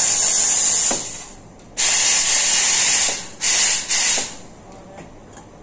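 Steam wand of a La Marzocco espresso machine blasting steam into the open air in three loud, high hisses that start and stop abruptly, the wand being purged before the milk is steamed.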